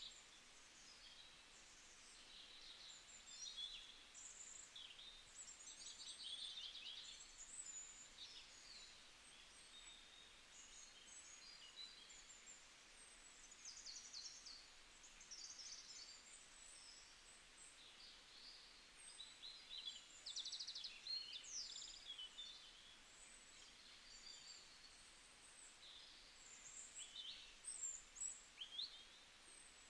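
Faint chirping and twittering of small birds: many short high calls and quick trills, one after another, over a low hiss.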